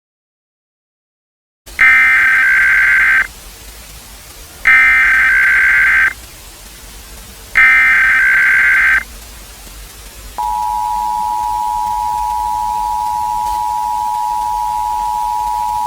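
Emergency Alert System tones: after a short silence, three identical bursts of SAME header data, each about a second and a half long, then the steady two-tone attention signal, which starts about ten seconds in and holds for several seconds.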